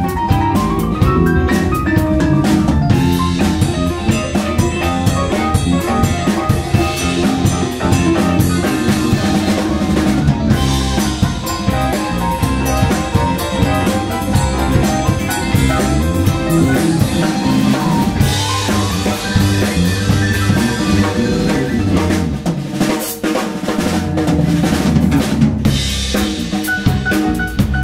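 A live band playing, with a drum kit keeping a busy beat under keyboard and bass.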